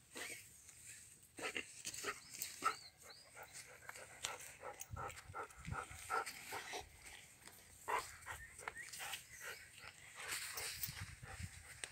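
A mine-detection dog sniffing and panting in short, irregular breaths, with scattered small clicks.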